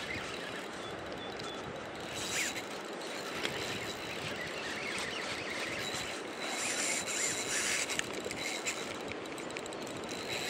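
Spinning reel's drag ratcheting in bursts as a hooked steelhead takes line during the fight.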